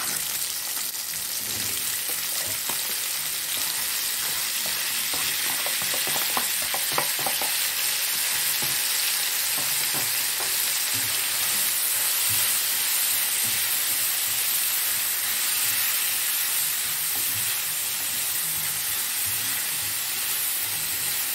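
Sausage pieces with freshly added chopped tomatoes and peppers frying in oil in a pan, a steady sizzling hiss, with scattered light knocks as they are stirred.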